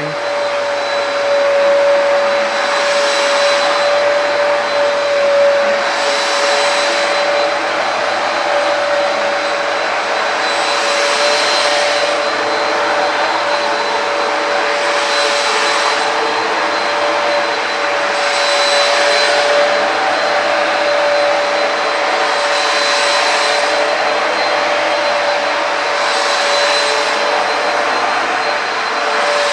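Hoover PowerDash carpet cleaner running drying passes on a rug, suction only: a steady motor hum with a constant tone over a loud rushing hiss. The hiss swells about every four seconds.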